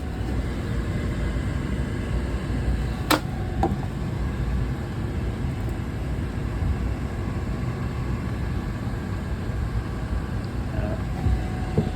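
Steady low machinery rumble, with a sharp click about three seconds in and a fainter one just after.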